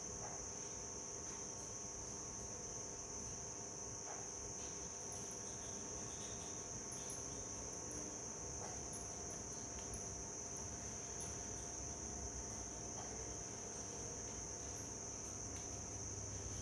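Steady high-pitched chorus of insects, one unbroken shrill trill, with a few faint clicks now and then.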